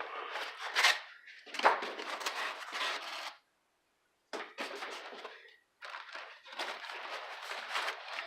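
Packing material being handled and pulled out of the shipping box, with rustling and scraping full of small clicks. It comes in several bursts, with a short pause near the middle.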